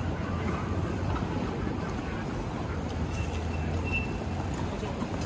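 City street ambience: steady traffic noise with a low engine hum that eases off near the end.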